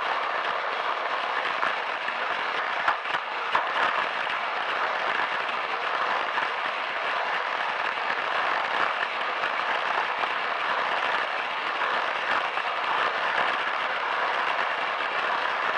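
Plarail toy shinkansen running on plastic track: a steady whirring rattle of its small battery motor, gears and plastic wheels, heard close up from on board, with a few sharper clicks about three seconds in.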